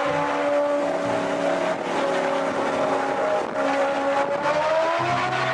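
Racing engine sound effect: a steady engine drone whose pitch sags slightly and then climbs near the end.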